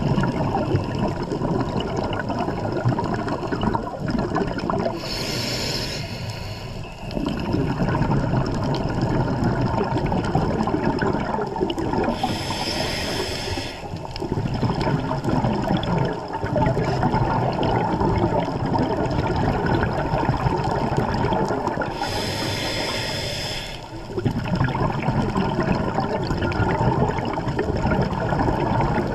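Scuba regulator breathing underwater: three hissing inhalations, spaced several seconds apart, with long rushing, bubbling exhalations between them.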